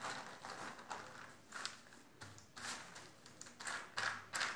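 Thin plastic sheet rustling and crinkling under the hands as it is smoothed flat and rubbed with oil, in a few short, faint swishes about a second apart.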